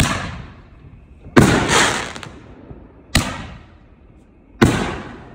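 Consumer aerial fireworks bursting overhead: four loud bangs about a second and a half apart, each trailing off in an echo, the second with a longer crackling tail.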